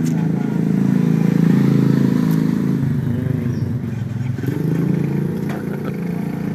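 Motorcycle engine running steadily, its pitch dropping and rising again a little past halfway.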